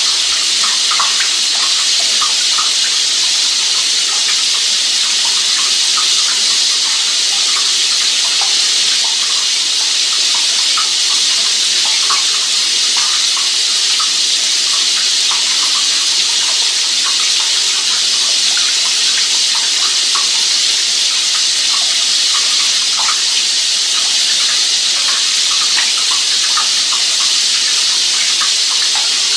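Steady rushing of running water with many small splashes scattered through it.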